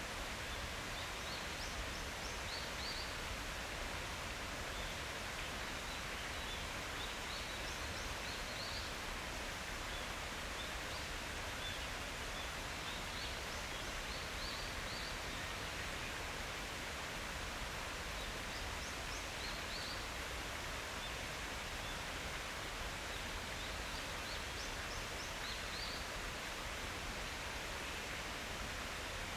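A steady rushing outdoor background with a small songbird singing a short phrase of quick high chirps about every five or six seconds.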